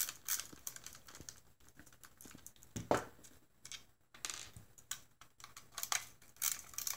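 Hand screwdriver backing T10 Torx screws out of a DeWALT 20 V battery pack's plastic case: faint, irregular small clicks and scrapes of the bit and case being handled. The sharpest click comes about three seconds in.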